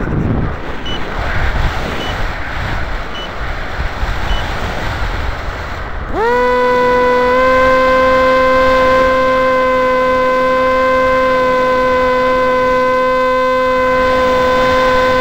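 Air rushing over the onboard camera's microphone on an RC flying wing in flight, then about six seconds in the plane's motor and propeller spool up quickly to a steady whine.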